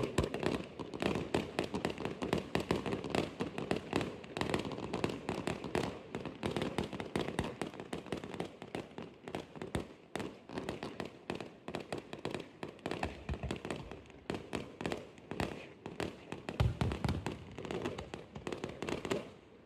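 Fireworks crackling and popping in a rapid, continuous stream of sharp cracks, stopping abruptly near the end.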